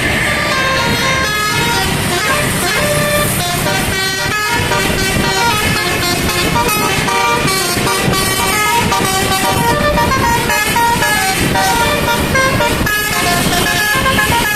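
Telolet basuri musical air horn playing a fast melody of short notes that step up and down in pitch several times a second, with vehicle traffic noise underneath.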